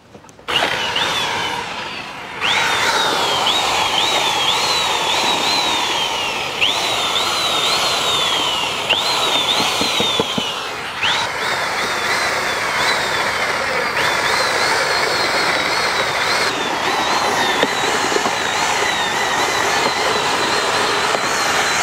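Handheld electric drill-type mixer with a long paddle shaft, the kind used for mixing puttu flour, running in a big aluminium pot and churning milkshake with chunks of ice cream. Its motor whine repeatedly jumps up and sinks back for the first half or so, then holds steadier.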